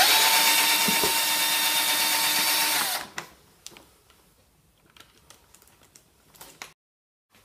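Cordless drill-driver running for about three seconds with a steady whine, undoing a saddle panel bolt; it winds down as it stops. Faint clicks and taps follow.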